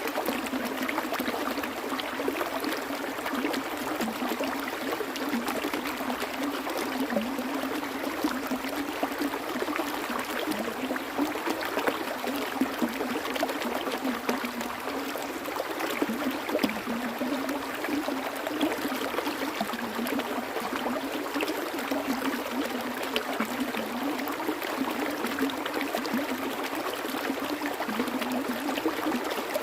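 Stream water flowing and trickling steadily, with small splashes and gurgles throughout.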